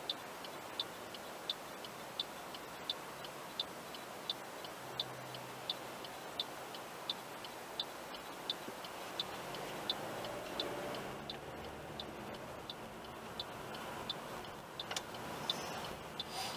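Car turn-signal indicator clicking steadily in the cabin, about three clicks every two seconds. Under it is a low hum of engine and traffic, which swells about ten seconds in as the car pulls away from a standstill.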